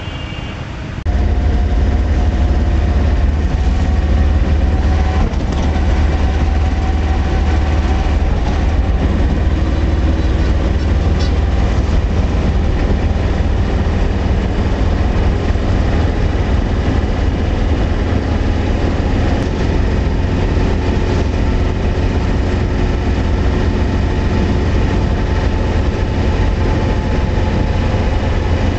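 Truck cab noise at highway speed: the engine, tyres and wind make a steady, loud low drone that cuts in abruptly about a second in.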